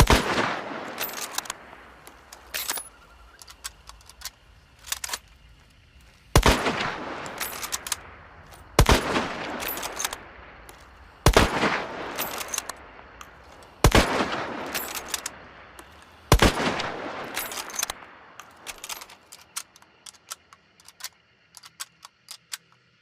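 Mosin-Nagant bolt-action rifle firing six shots, each a sharp crack with a long echoing tail. The first comes at once, and the other five follow about every two and a half seconds after a pause, with lighter clicks between shots. A run of quieter clicks follows the last shot.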